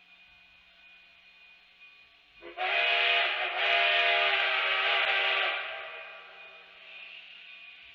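Chime steam whistle of narrow-gauge K36 steam locomotive No. 487 blown twice, a short blast and then a longer one of about two seconds, with a hiss of steam over the chord. It then trails off.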